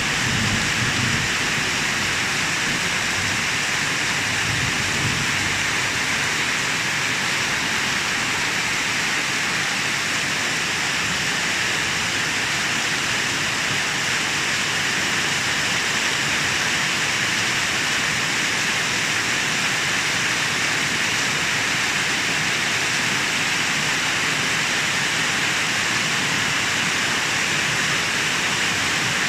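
Steady heavy rain, an even hiss that holds at one level throughout. A low rumble of thunder dies away in the first few seconds.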